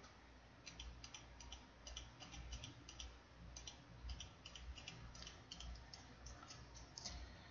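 Faint, irregular clicking of a computer mouse and keyboard, often two or three clicks in quick succession, over a low hum.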